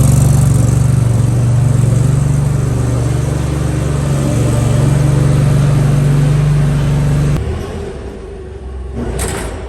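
Forklift engine running steadily at a fast idle, then dropping away about seven and a half seconds in. A brief rush of noise comes near the end.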